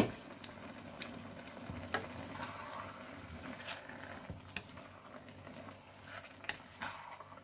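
Wooden spatula stirring and scraping through a simmering curry of butternut squash, spinach and tuna in a wok, with a low sizzle and scattered soft clicks. A single sharp knock right at the start.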